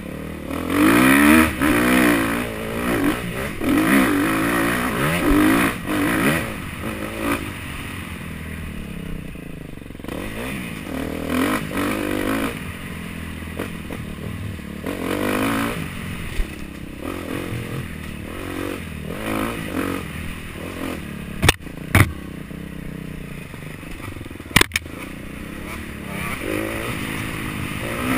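Dirt bike engine revving up and down in repeated bursts as the bike is ridden hard over a trail, easing to a lower, steadier note in the second half. Three sharp knocks come about three quarters of the way through.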